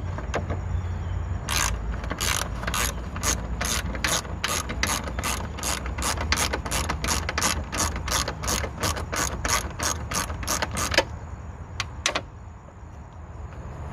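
Ratchet wrench clicking as it backs out a bolt, a steady run of sharp clicks about three a second for several seconds, stopping once the bolt is loose enough to turn by hand, with two last clicks just after.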